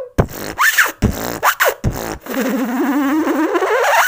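Intro jingle: beatbox-style percussive hits with short pitch swoops for about two seconds, then a long wobbling sound that rises steadily in pitch.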